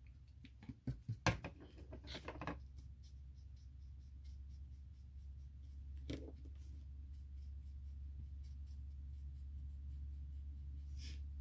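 Small clicks and taps of painting tools being handled, in a cluster a second or two in and once more around six seconds in, over a steady low hum.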